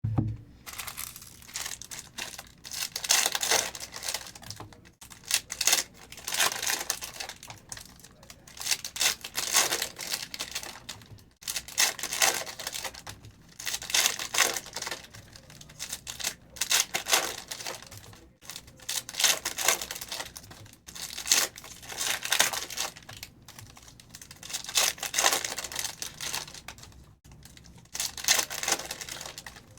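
Foil trading-card packs being torn open and crinkled by hand, a burst of tearing and crinkling about every two seconds.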